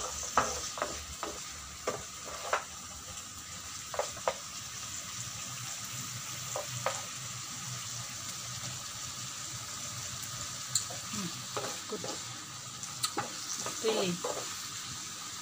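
Broccoli and cauliflower sizzling in a frying pan as a wooden spatula stirs them, with frequent light scrapes and knocks of the spatula against the pan.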